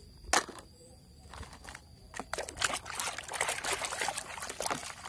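Hand sloshing and splashing a toy around in a plastic bucket of muddy water, starting lightly and turning into dense, continuous churning about two seconds in. A single sharp knock comes just before the sloshing starts.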